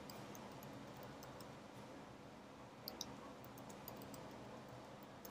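Faint, scattered clicks of a computer keyboard and mouse as the last characters of a password are typed, with a louder pair of clicks about three seconds in.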